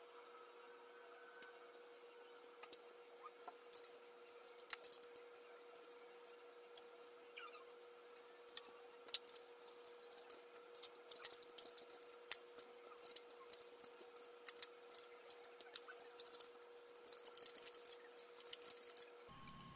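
Plastic parts of a Thames & Kosmos Mega Cyborg Hand robot kit clicking, snapping and rubbing together as they are handled and fitted. Scattered sharp clicks begin a few seconds in and grow more frequent, with a dense clatter near the end, over a faint steady hum.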